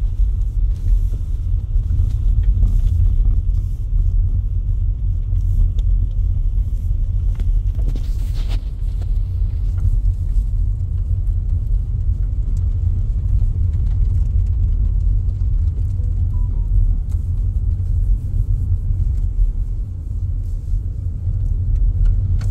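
Car cabin noise while driving: a steady low rumble of engine and tyres on the road, heard from inside the car, with a few faint ticks.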